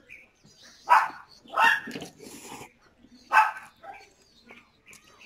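A dog barking three times, short sharp barks spread over a few seconds, about one, one and a half, and three and a half seconds in.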